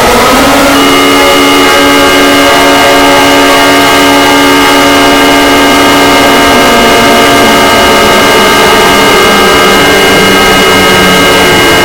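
Fictional emergency alert (EAS-style) alarm: a chord of many steady tones held together over a heavy hiss of distortion, extremely loud and clipped. The chord shifts just after the start, and several of its tones drop out near the end.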